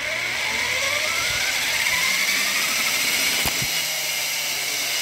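An electric chainsaw's motor drives the raised rear wheel of a homemade e-bike through a chain, with a whine that rises in pitch over the first two seconds as it speeds up, then runs steady.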